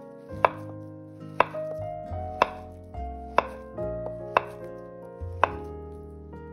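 Kitchen knife slicing through a peeled banana and tapping down on a wooden cutting board: a sharp tap about once a second, six in all.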